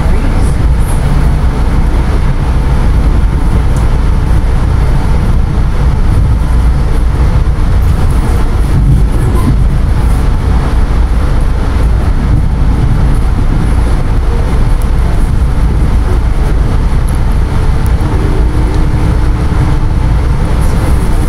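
NJ Transit commuter train running, a loud, steady rumble with no breaks.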